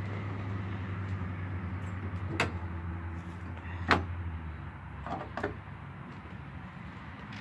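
Car hood being opened: a sharp click of the latch about two and a half seconds in, a louder metallic clack as the hood is lifted about a second and a half later, then two lighter clacks. A steady low hum underneath stops about four and a half seconds in.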